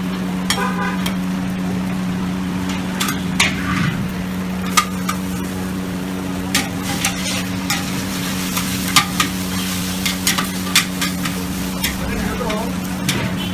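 Metal wok spatula and ladle scraping and clanking against a large wok and plates as fried noodles are stir-fried and scooped out, with frying sizzle over a steady mechanical hum.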